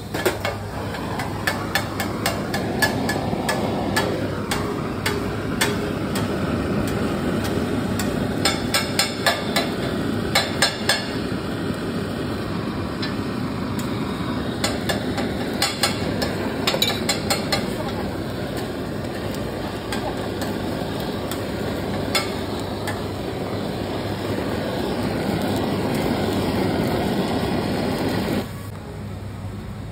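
Metal cooking utensils clanking and tapping against an iron griddle and pots, in bursts of quick strikes, over a steady rushing noise that cuts off suddenly near the end.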